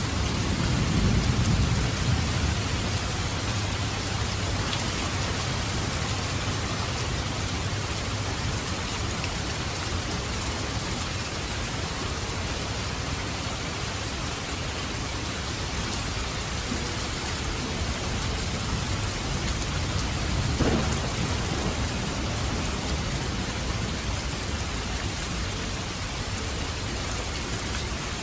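Heavy, steady downpour of rain, with a low rumble of thunder in the first couple of seconds and another peal of thunder about twenty seconds in.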